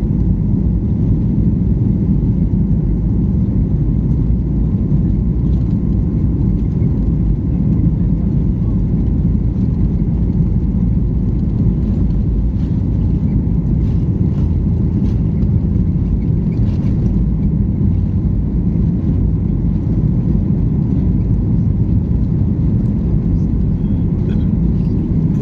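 Steady, loud low rumble of an airliner cabin, engine and air noise droning evenly without change.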